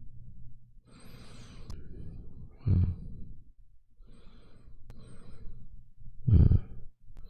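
A man breathing slowly and deeply, two long breaths, each ending in a short, loud, low exhale.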